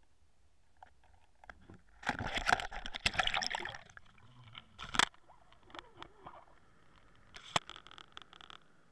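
Splashing and gurgling as the camera plunges into the sea about two seconds in, followed by a few sharp knocks and clicks underwater.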